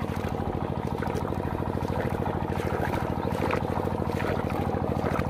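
A small engine running steadily at a constant speed with a fast, even beat.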